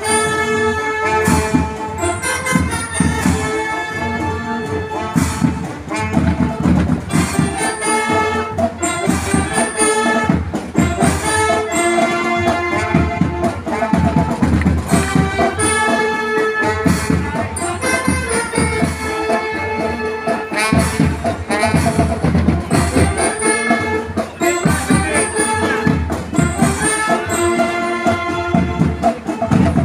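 School marching band playing a marching tune outdoors: drums and percussion beating steadily under held melody notes.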